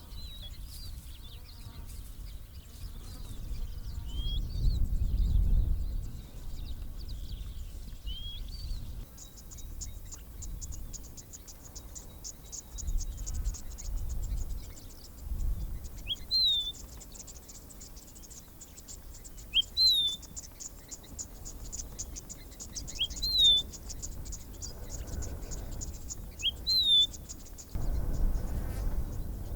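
Savanna outdoor sound: a bird repeating a short, high, rising-then-falling whistled call, about every three and a half seconds in the second half. A fast, high insect trill sets in about nine seconds in and stops near the end. An uneven low rumble sits underneath.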